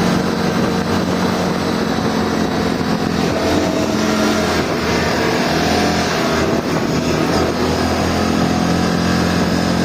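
A 600cc UForce side-by-side buggy's engine running on the move, heard from inside the cab with the windows open, with road and wind noise. The engine note changes pitch a few times as the speed varies.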